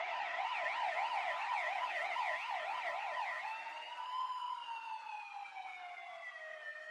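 A siren giving a fast yelping warble, about three sweeps a second. About halfway through it switches to a slow rising-and-falling wail and grows steadily fainter.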